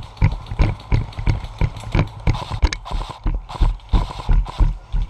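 Running footsteps: heavy, even thuds about three a second, each stride jolting a body-worn camera.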